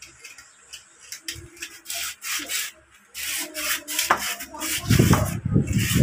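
Sandpaper rubbing on a starter motor's armature in quick repeated strokes. About five seconds in a louder, denser scraping noise takes over.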